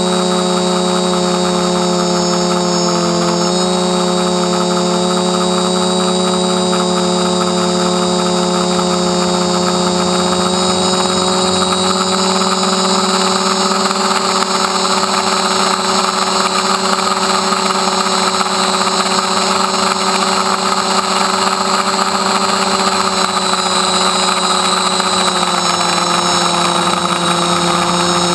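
DJI F450 quadcopter's electric motors and propellers whining steadily in flight, heard up close from a camera on the frame. The pitch shifts slightly about three seconds in and again near the end as the throttle changes.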